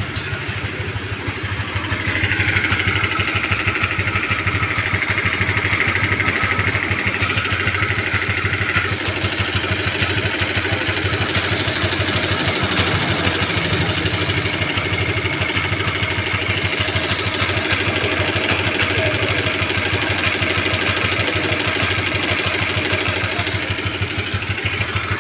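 Honda CB150R's single-cylinder engine idling with a rough rattle from the cylinder head, which the mechanic thinks sounds like a stretched, slack cam chain or a failed cam chain tensioner.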